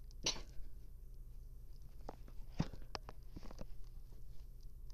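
Small pet rodent crunching a corn chip: a handful of short, sharp crunches at irregular intervals, over a steady low hum.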